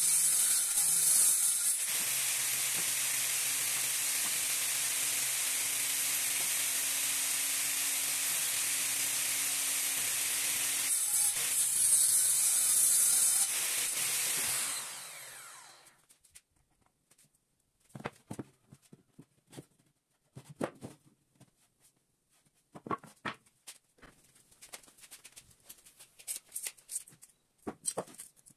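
Table saw running as MDF is cut, the cut loudest at the start and again about 11 seconds in. The saw is then switched off and spins down. After that come scattered knocks and clicks of MDF pieces being handled and set down.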